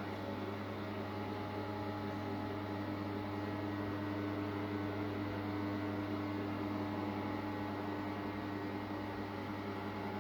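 Steady, unchanging low mechanical hum with a few fixed tones above it.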